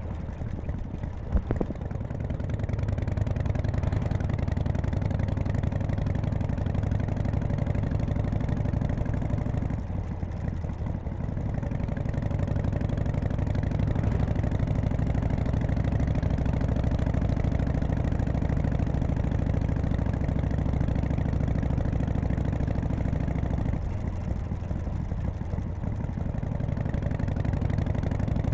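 1991 Harley-Davidson Softail FXSTC's 1340 cc Evolution V-twin running on the road, easing off briefly about ten seconds in and again near the end.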